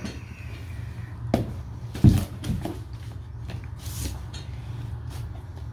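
Cardboard speaker box being opened by hand: a sharp click about a second and a half in, then a thump about two seconds in as the lid comes open, followed by lighter scrapes and rustles of the flaps and the foam sheet, over a steady low hum.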